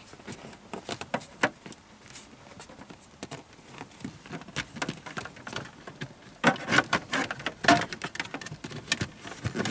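A thin cable being pushed under a car's plastic interior trim panel and along the carpet: irregular rustling, scraping and light clicks of cable against plastic trim, busiest in the second half.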